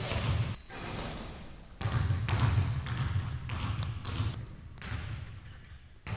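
Basketball bouncing on a hardwood gym floor: a thud about once a second, each ringing on briefly in the hall.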